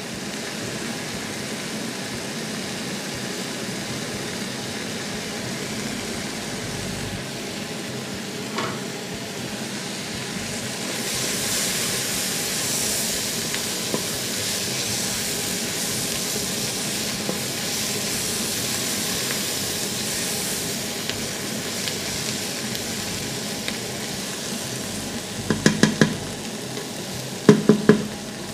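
Diced onion, carrot, celery and garlic sizzling steadily as they roast over high heat in lamb fat in a stainless steel pot, a little louder for a stretch in the middle. Near the end a wooden spoon stirs the vegetables and knocks against the pot twice.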